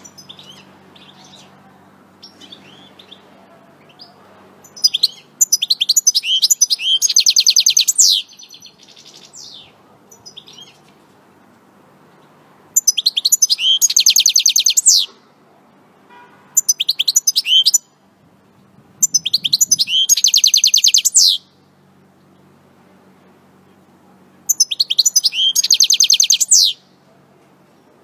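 European goldfinch singing: five loud bouts of rapid, trilled high notes, each a second or three long, with pauses between them and a few softer chirps in the first few seconds.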